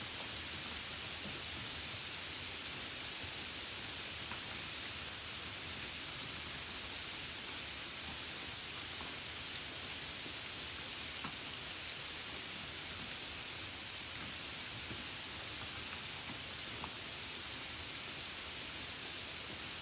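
Steady hiss of rain, with a few faint raindrop ticks scattered through it.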